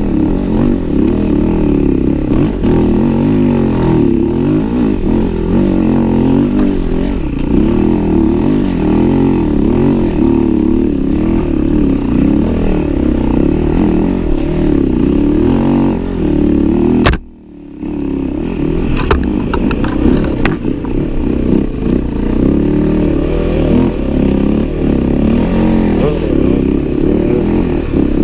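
Enduro dirt bike engine revving up and down constantly as it is ridden hard through snow. The sound drops out suddenly about two-thirds of the way through, then the revving picks up again.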